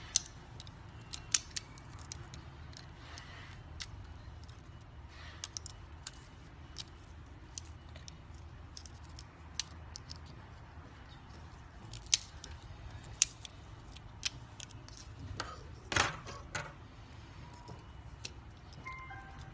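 Stainless-steel parts of a folding 4-in-1 camping cutlery set (fork, spoon, knife and bottle-opener blade) clicking and clinking as they are pulled out of and fitted into the handle. The clicks come irregularly, a few of them sharper and louder in the second half.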